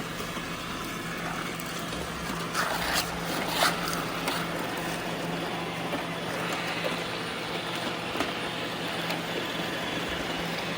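Several robot vacuum cleaners running, a steady motor hum and whir with a constant low tone. A few short rattles come about two and a half to four seconds in.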